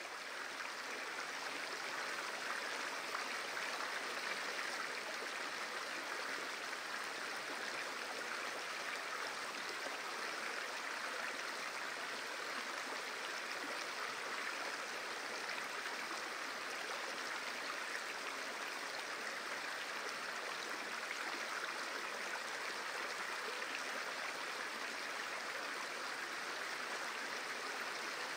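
Running water of a small stream: a steady, even rush.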